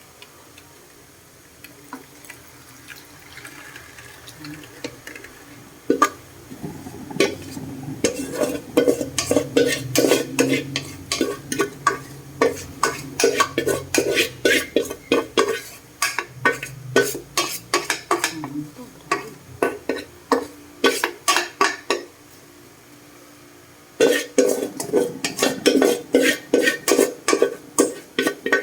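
A utensil stirring in a cooking pan of chili garlic oil, knocking and scraping against the pan in quick repeated strokes, about two to three a second, with a faint sizzle of oil beneath. The stirring starts about six seconds in and pauses for a couple of seconds near the end.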